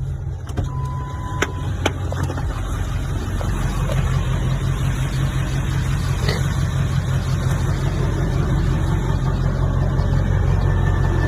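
Pickup truck engine running at idle, getting louder about three to four seconds in. There is a short steady beep and a few sharp clicks about a second in.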